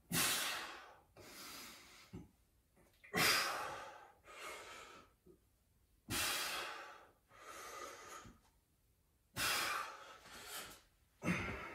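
A person breathing hard in a steady rhythm while exercising: a loud, sharp breath about every three seconds, each followed about a second later by a softer one.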